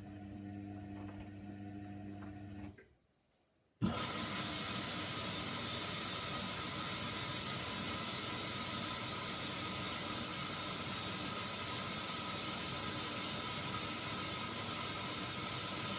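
A steady electrical hum that cuts off about three seconds in. About a second later a washing machine's water inlet starts with a steady hiss as water rushes in to fill the drum.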